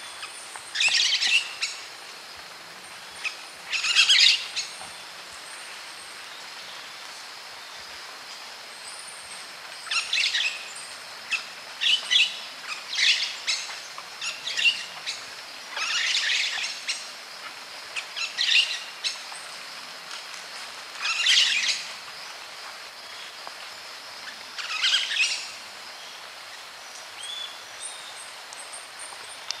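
Pyrrhura parakeets, such as the white-eared parakeet, calling in short bursts of chattering notes, about a dozen spread irregularly a second or several apart, over a steady background hiss.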